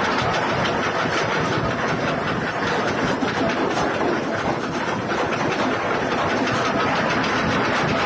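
Ship's anchor chain running out fast over the windlass and through the chain stopper: a loud, continuous clattering, grinding rattle of steel links. The chain is running free, a runaway anchor drop.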